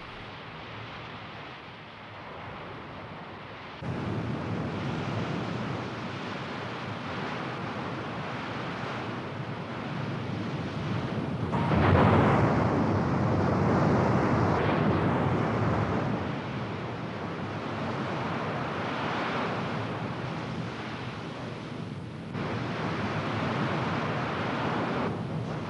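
Rushing sea water and wind, a steady noise with no clear pitch, like a hull cutting through waves. It jumps louder about four seconds in and swells to its loudest about twelve seconds in.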